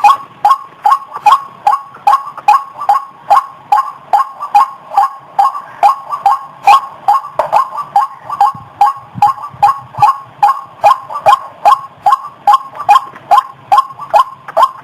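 White-breasted waterhen (ruak-ruak) calling: a fast, even series of short, loud 'kwak' notes, about three a second, played as a bird-luring recording.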